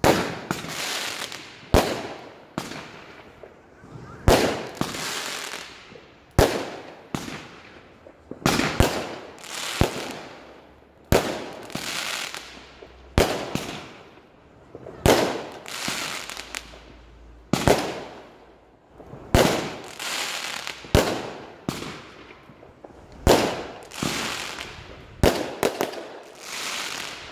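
Aerial fireworks bursting overhead: a sharp bang every second or two, each followed by a hiss that fades over about a second.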